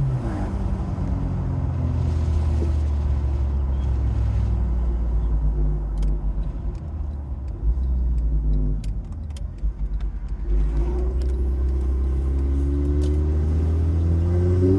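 Turbocharged Honda engine running at low revs, then accelerating from about two thirds of the way in, its pitch climbing steadily. A few faint clicks come in the middle of the low stretch.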